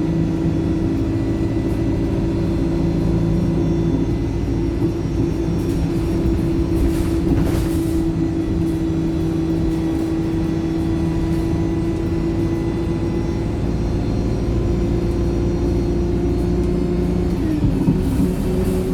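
Wright StreetLite single-deck bus heard from on board, its diesel engine running with a steady drone under way; the uploader calls the engine tired. A short hiss comes about seven seconds in, and near the end the engine note drops and then climbs again.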